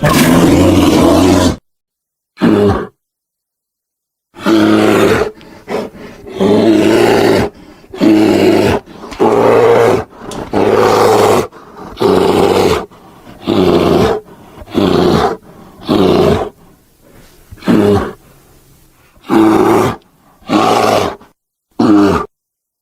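Polar bear roar sound effects: a string of about fifteen deep roars and growls, each a second or less, with two short silences in the first few seconds and shorter gaps after.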